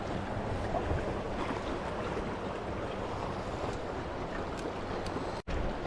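Steady rushing of river current around a drifting boat, with low wind rumble on the microphone. The sound cuts out completely for an instant near the end.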